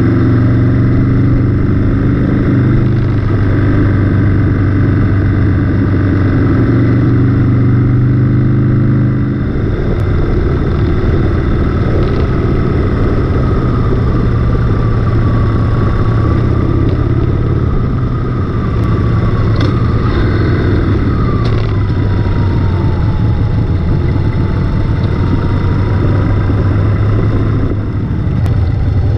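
Harley-Davidson V-twin motorcycle engine running at road speed, heard from on the bike. The engine note changes about nine seconds in, and a faint wavering, slowly falling whine runs through the second half.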